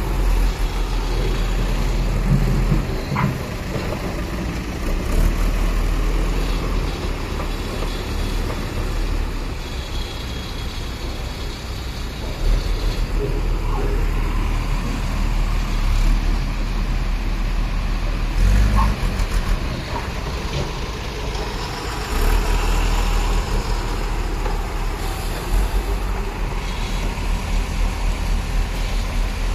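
Heavy diesel dump trucks running at low speed, a deep engine rumble that swells and eases as they crawl through mud and potholes. A few short squeaks or knocks come through, about three seconds in and again near the middle.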